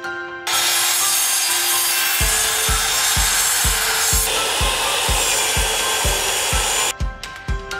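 Loud whirring of power woodworking tools cutting timber, a mitre saw and then a table saw. It starts about half a second in, changes character about halfway, and cuts off suddenly near the end. Background music with a steady beat runs underneath.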